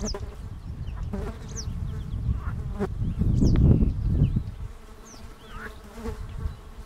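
Northern lapwing calling in flight: short, high, falling cries repeated about every second or so, the alarm calls of a bird disturbed from its meadow. Beneath them runs a steady low buzz, with a low rumble that swells about three to four seconds in.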